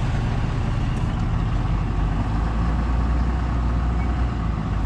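Pickup truck carrying a truck camper driving off slowly over a dirt track, heard from inside the cab: a steady engine and road rumble.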